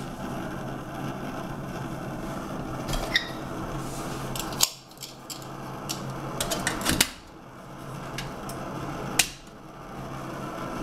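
Primus 71 white gas stove burning with a steady rushing sound while it is still burning off its preheat. It cuts out suddenly three times, about halfway through, around seven seconds and near the end, then comes back each time, a flame starved of oxygen inside its tin-can windscreen. A few light metal clicks are heard along with it.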